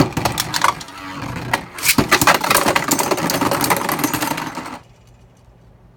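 Two plastic Beyblade Burst spinning tops launched with ripcord launchers into a plastic stadium, whirring and rattling with rapid sharp clacks as they collide repeatedly. The clashing stops abruptly about five seconds in, as the match ends with one top bursting apart.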